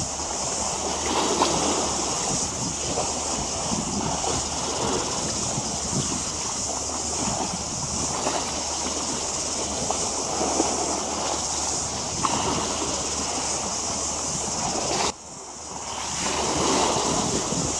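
Wind blowing on the microphone and small waves lapping at the water's edge, over a steady high hiss. About fifteen seconds in, the sound drops away abruptly, then swells back up.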